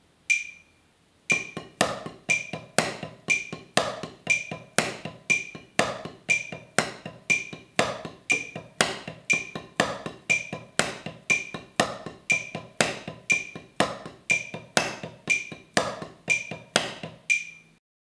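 Wooden drumsticks playing an inverted paradiddle (right-right-left-right-left-left-right-left, starting on the double stroke) on a rubber practice pad in an even stream of strokes at 60 BPM, over a steadily ticking metronome. A lone metronome click comes first; the sticks come in about a second in and stop about a second before the end.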